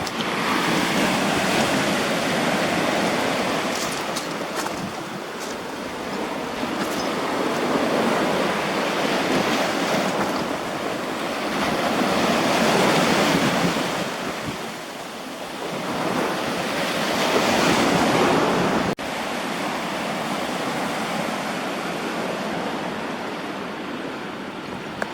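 Sea waves breaking and washing ashore, swelling and easing every four to five seconds. After a sudden brief drop about three-quarters of the way through, the wash turns steadier and a little quieter.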